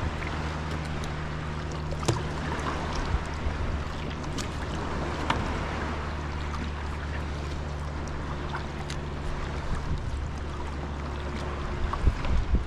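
Water splashing and dripping from a carbon Greenland paddle and lapping against the hull of a sea kayak under way, with scattered small ticks and splashes. A steady low hum runs underneath.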